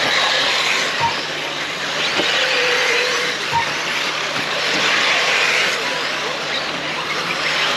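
Electric off-road RC cars with brushless motors racing on a dirt track: a steady hiss of motors and tyres that swells and fades as the cars pass. Short beeps sound twice, about a second and three and a half seconds in.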